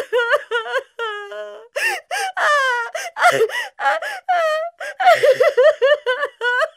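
A performer's high-pitched wailing and sobbing: a run of short cries that rise and fall in pitch, one after another.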